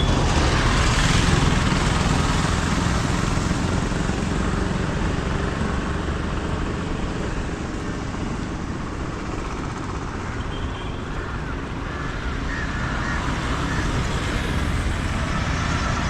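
Steady road traffic noise, the running of passing cars and other motor vehicles on a busy city street, a little louder in the first couple of seconds.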